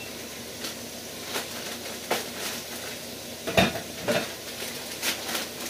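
Vegetables sizzling steadily in oil in an electric skillet, with a scattering of sharp clicks and knocks from kitchen handling, the loudest about three and a half seconds in.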